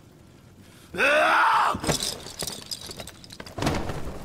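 A person's anguished cry about a second in, loud and brief, rising then falling in pitch, followed near the end by a short burst of noise.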